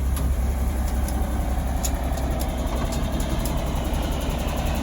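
Truck engine idling steadily, a strong low hum, with a run of quick light clicks in the second half.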